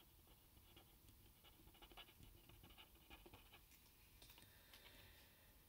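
Faint scratching of a felt-tip pen writing on paper, in a run of short strokes.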